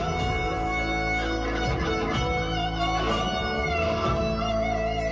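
Guitar playing sustained melodic notes over a steady bass line in a live band performance.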